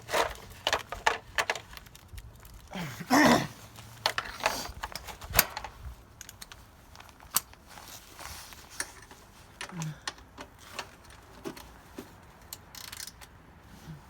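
Metal hand tools clinking and clicking irregularly while being picked out of a small tool bag and fitted to bolts, with a short louder clatter about three seconds in.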